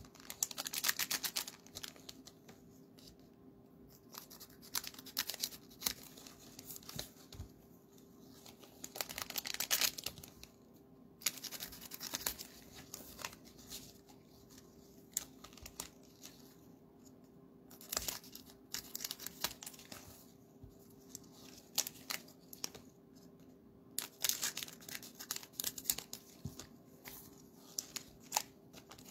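Cellophane wrappers of Panini Mosaic basketball card cello packs torn open and crinkled in short irregular bursts every few seconds, over a faint steady hum.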